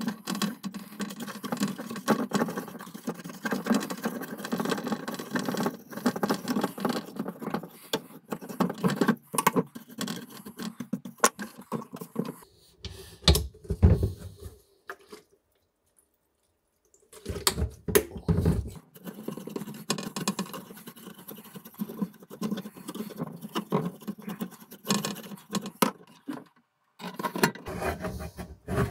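Stiff paintbrush bristles scrubbing an alcohol-wetted circuit board, a rapid, dry scratching that runs in two long spells. Between the spells there are a few dull knocks, with a short silent gap.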